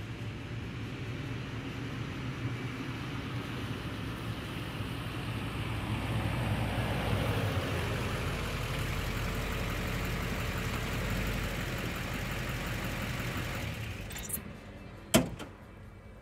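A 2006 Chevy 3500HD dually's LBZ Duramax 6.6-litre V8 turbodiesel runs at low speed as the truck rolls up close, growing louder as it nears and then fading away. A single sharp click comes near the end.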